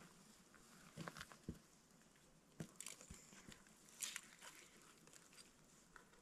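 Near silence, broken by a few faint, short clicks and rustles; the most noticeable rustle comes about four seconds in.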